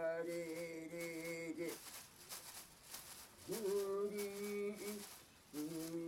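Shaman's ritual chant: a voice singing long, steady held notes, three of them with short pauses between.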